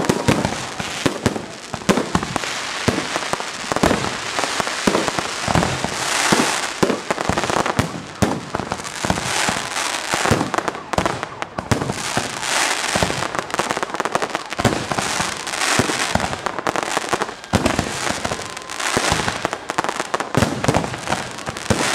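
Fireworks display: a dense, unbroken run of bangs and crackles, with hissing surges every few seconds.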